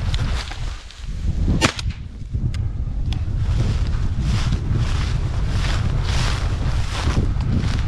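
Wind buffeting the microphone, with rustling steps through dry grass and cattails. One sharp crack sounds about a second and a half in, followed by two fainter ticks.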